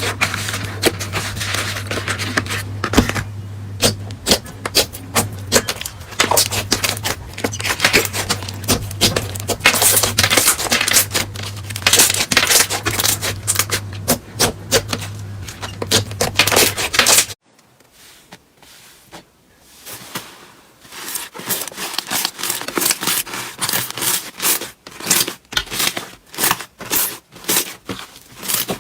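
Slime being squeezed and pressed by hand, giving rapid crackling clicks and pops over a low steady hum. About two-thirds through the sound cuts off abruptly. After a moment of near quiet, softer clicks of slime being pressed come in a fairly even rhythm.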